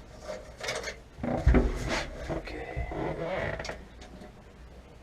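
Clattering and creaking of someone climbing into and settling in a loader's cab, with one heavy thump about one and a half seconds in.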